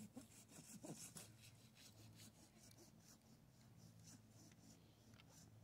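Faint rasping strokes of a hand saw cutting through the trunk of a freshly growing, wet evergreen, several strokes a second at first and growing fainter and sparser after two or three seconds.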